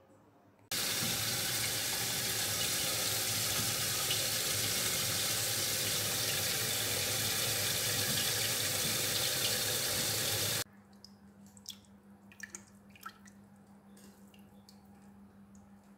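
Electric butter-churning motor running in a pot of curd and water, a loud steady rushing noise that starts suddenly about a second in and cuts off abruptly about ten seconds later. Afterwards, a faint low hum with scattered small wet clicks as the churned butter is gathered by hand.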